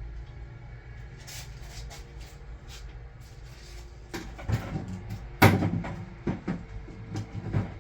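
Metal parts and hand tools being handled on a workbench: a low steady background, then from about four seconds in a run of knocks and clatters, the sharpest about five and a half seconds in.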